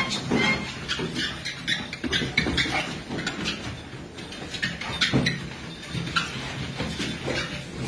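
Dogs' paws pattering and scrabbling on a running treadmill belt as a husky and a stocky brown dog trot and jostle on it, over the treadmill's faint steady motor hum.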